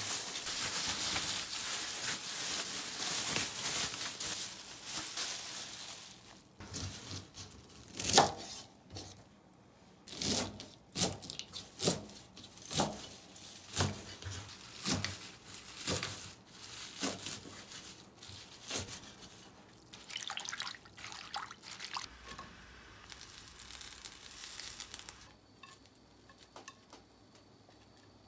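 Kitchen sounds: water running from a tap for the first several seconds, then a string of sharp knocks and clatters from kitchen utensils and dishes, roughly one a second, fading near the end.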